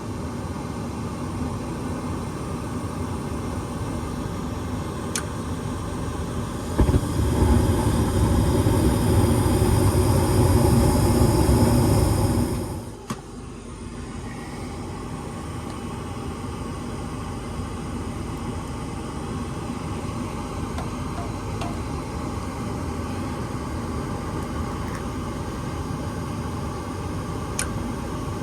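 Luxaire gas furnace running with a steady motor hum, a louder rushing noise for about six seconds in the middle that cuts off suddenly, and two faint clicks.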